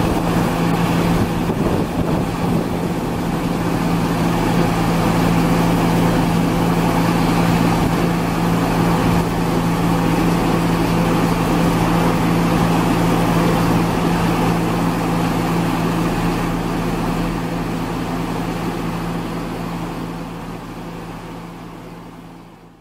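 Tracked compost star screen and loader running steadily, an even engine drone with machinery rumble, fading out over the last few seconds.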